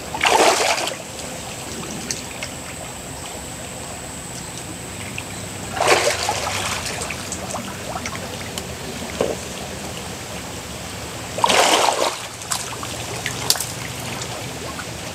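Stream water trickling steadily, broken three times by bursts of splashing, about a second in, about six seconds in and near twelve seconds, as a person wading waist-deep in a muddy stream grapples with a king cobra.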